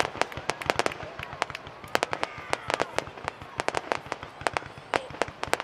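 Aerial fireworks shells bursting in quick succession: a dense, irregular run of sharp bangs and pops, several a second.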